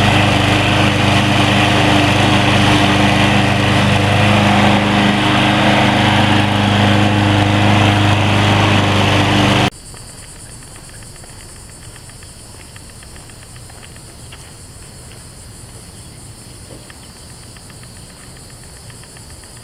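Troy-Bilt TB230 21-inch walk-behind lawn mower engine running steadily under mowing load, cutting off suddenly about halfway through. After that, a steady high-pitched drone of insects such as crickets.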